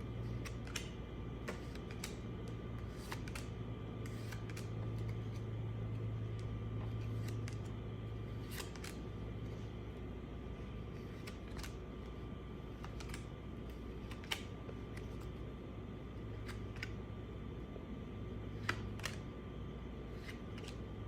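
Steady low hum with scattered faint clicks and taps, the sharpest two about two-thirds of the way through and near the end.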